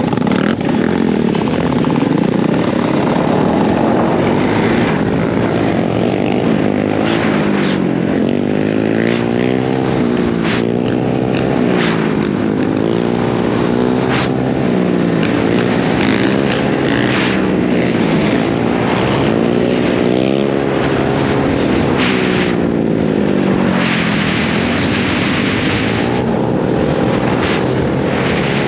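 Dirt bike engine revving hard as the bike is ridden, its pitch climbing and dropping again and again with throttle and gear changes, with short bursts of rushing noise.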